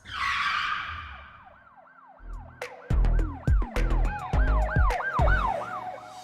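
Produced intro track: a whoosh falling in pitch, then a siren-like tone rising and falling over and over, about twice a second. About three seconds in, heavy bass hits and sharp clicks join in.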